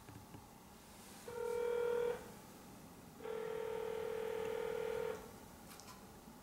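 Cell phone sounding two steady electronic telephone tones, a short one about a second in and a longer one of about two seconds, as it is aimed to change slides. Afterwards it is taken as a misfire of the slide-changing app.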